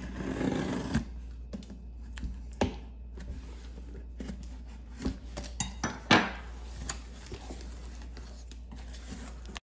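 A knife slitting the packing tape on a cardboard box, with a scratchy scrape in the first second, then scattered sharp clicks and taps of the blade and cardboard as the box is handled; the loudest knock comes about six seconds in. Near the end, the cardboard flaps are lifted.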